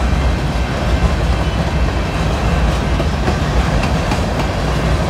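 Freight train of empty gondola cars rolling past close by: a steady, loud low rumble of steel wheels on the rails, with a few faint clicks partway through.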